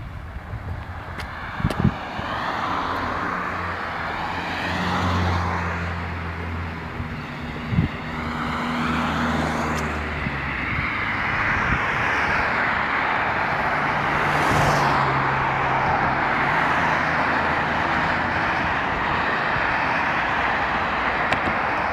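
Cars passing on a multi-lane suburban road: steady tyre and engine noise that swells and eases as vehicles go by, with engine hum loudest around five to ten seconds in and again around fifteen seconds. Two short knocks come early on and about eight seconds in.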